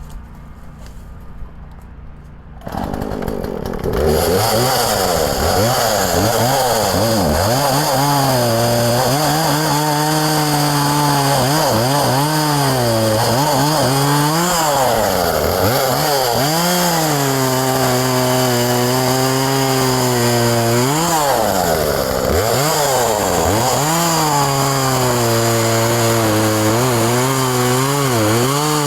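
Chainsaw engine starting up a few seconds in, then running loud, its pitch swooping up and falling back again and again between steadier stretches as it is revved through cuts in pine limbs.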